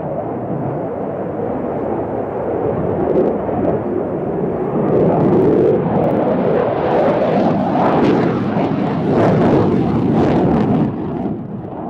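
F-16 fighter jet engine at high power in afterburner, a loud rushing roar that builds and turns crackly from about halfway, then drops off just before the end.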